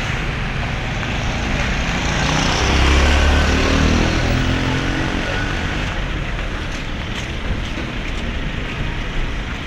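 Road vehicle noise from a moving ride: steady engine and tyre noise, with an engine growing louder about three seconds in and then easing off.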